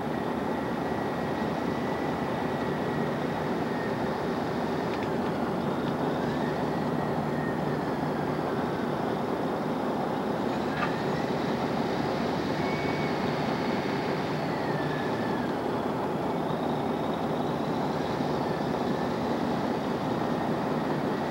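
Caterpillar D8N crawler dozer working steadily under load while pushing brush: a steady diesel engine and track noise, with a faint high whine that drifts a little up and down in pitch.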